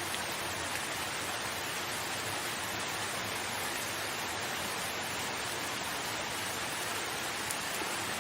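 Steady rain, a continuous even hiss with no breaks.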